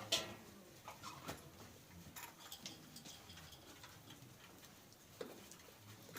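Goats moving about in a pen, making faint, irregular taps and clicks.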